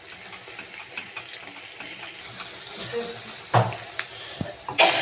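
Onions and green chillies sizzling in hot oil in a wok: a steady hiss that grows louder about two seconds in. The spatula scrapes and knocks against the wok a few times near the end.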